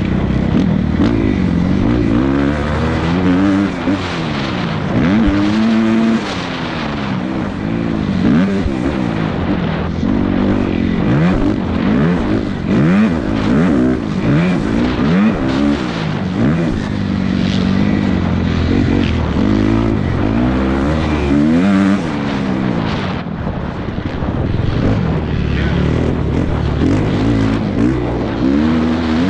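Several motocross dirt bikes racing, their engines revving up and down as they accelerate and shift, with the rising and falling notes of different bikes overlapping.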